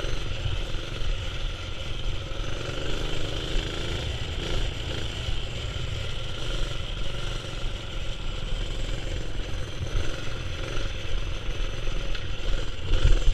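A mini-bike's Predator 212 single-cylinder four-stroke engine runs steadily under throttle on a dirt trail, over a heavy low rumble. The sound gets louder briefly near the end.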